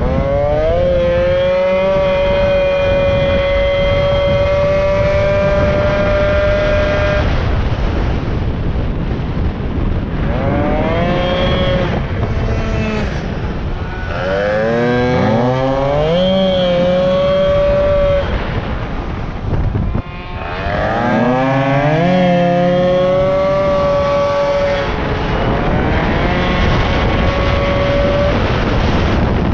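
Racing moped's small two-stroke engine running at high revs on a track lap. It holds a high steady pitch, then eases off and climbs again in rising sweeps several times through the corners.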